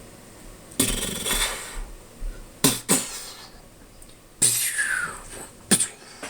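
A person making fireworks noises with their mouth: about five sudden hissing blasts and pops, one of them with a falling whistle-like tone about four and a half seconds in.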